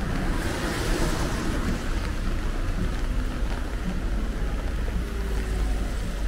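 Wind buffeting the microphone: a steady, uneven low rumble under a hiss, with a stronger swell of hiss about a second in.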